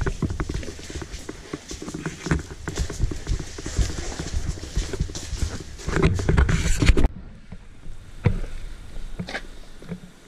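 Camera handling noise: dense, irregular rubbing, knocking and low thumping as the covered camera is carried. It cuts off abruptly about seven seconds in, leaving a much quieter background with a few faint clicks.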